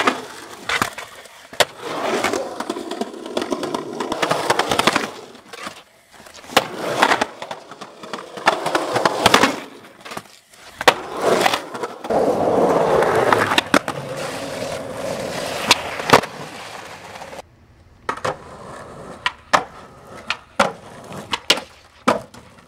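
Skateboard wheels rolling over concrete and asphalt, broken by many sharp clacks of the board hitting the ground, across several separate takes.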